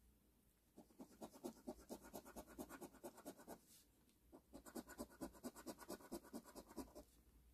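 Coin scraping the coating off a scratch-off lottery ticket in quick back-and-forth strokes, about six a second. It comes in two bouts with a short pause between them and is faint.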